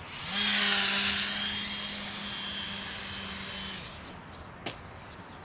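Small motor and propeller of a homemade radio-controlled plane running at a steady throttle as it is hand-launched, a hum with a high whine that fades as the plane flies off and stops just under four seconds in. A single sharp click follows near the end.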